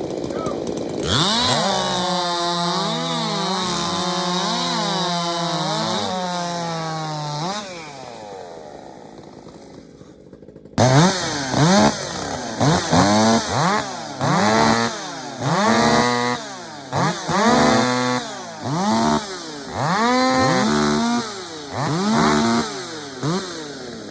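A five-cubic-inch-class race chainsaw. It revs up about a second in and is held at high revs for about six seconds, then winds down. After a short lull, a saw fires up and is revved in a string of short throttle blips, about one a second, each rising and falling in pitch.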